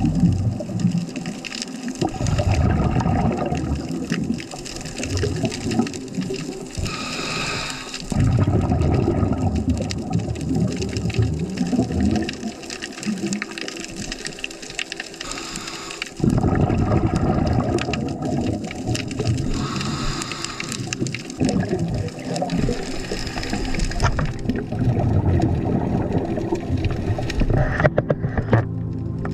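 Scuba diver breathing underwater through a regulator: a short hiss on each inhale, then a long rush of exhaled bubbles, repeating about every eight seconds.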